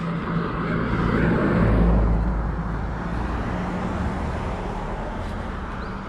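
A car driving past on the road. Its tyre and engine noise builds to its loudest about two seconds in and then eases off.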